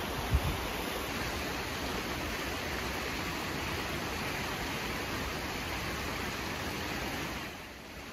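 Steady rush of water from waterfalls and a mountain river, with a brief low thump just after the start. The level drops to a quieter hiss near the end.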